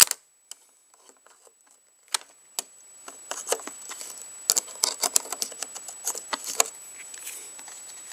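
Small hand-tool clicks and metal scrapes as a wrench works the thin sheet-steel nut off a motorcycle brake lever's pivot bolt: a sharp click at the start, a near-quiet pause, then a run of quick taps and scrapes from about three seconds in.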